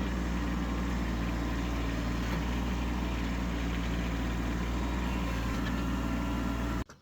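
Tractor engine running steadily at an even speed, cutting off suddenly near the end.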